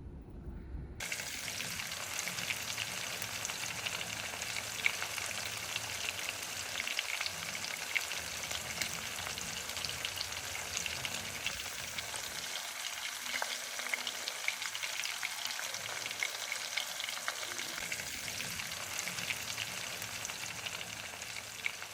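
Steady crackling, sizzling hiss full of tiny pops, like food frying in oil. It starts suddenly about a second in and holds even throughout.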